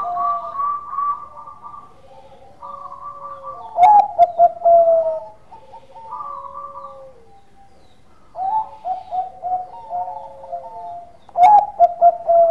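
Zebra dove (Bangkok perkutut) cooing: repeated phrases of quick staccato coos, each ending in a longer falling note, about every three to four seconds. Two sharp, loud clicks come with the phrases about four seconds in and near the end.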